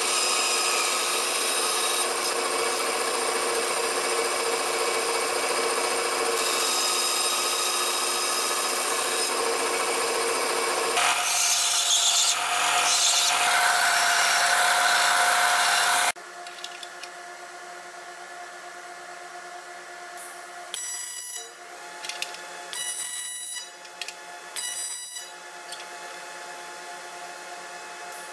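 Vertical band saw cutting aluminum rectangular tube, a steady loud run of about eleven seconds. It is followed by a belt sander grinding an aluminum piece until it cuts off suddenly. Then, over a quieter machine hum, come several short buzzing bursts of a TIG arc on aluminum, each about a second long, as the parts are tack welded.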